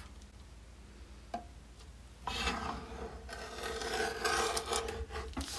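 Arm-style paper cutter blade shearing through a plastic Ziploc bag, a drawn-out rasping scrape of about three seconds that starts a little over two seconds in, after a light tap.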